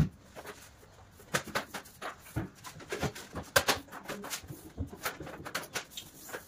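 Scattered, irregular light knocks and clicks of hand work on a TV wall panel being fitted. A sharp knock comes at the start and another about three and a half seconds in.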